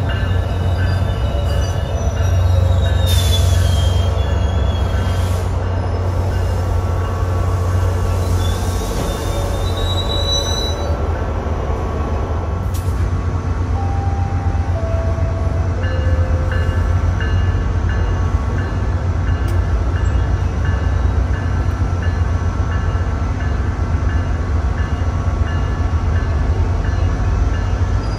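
SunRail diesel-hauled commuter train at the station platform: a steady low drone from the locomotive, with thin high squeals of steel wheels on the rails.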